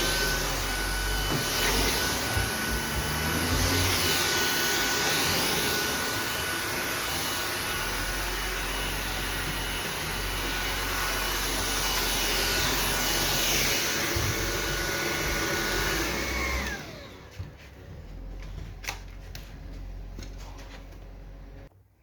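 Sauber Technic cordless stick vacuum running steadily with a high motor whine. About three quarters of the way through it is switched off and the whine falls away as the motor winds down. A few handling clicks follow.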